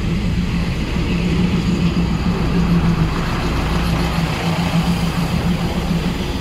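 Diesel train engine running steadily at close range, with a strong, even low hum.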